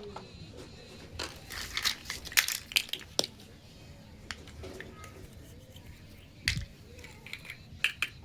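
Small plastic toy kitchen pieces and their packaging being handled: a run of sharp clicks, taps and crinkles in the first few seconds, one heavier knock about six and a half seconds in, and a couple more clicks near the end.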